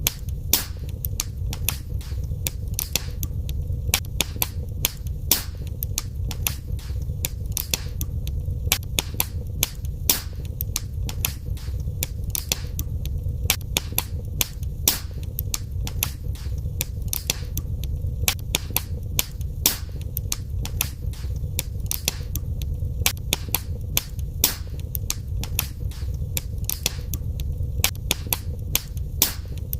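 Wood fire crackling in a fireplace: frequent sharp pops and snaps at irregular intervals over a steady low rumble of the flames.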